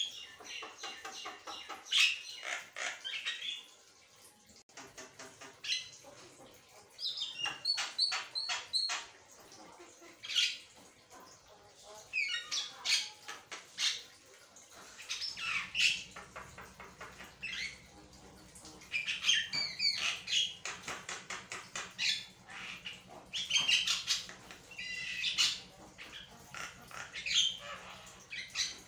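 Javan myna (jalak kebo) singing in full voice, without a break: a burst of varied chattering, short whistled glides and rapid clicking runs every couple of seconds. A faint low hum sets in about halfway through.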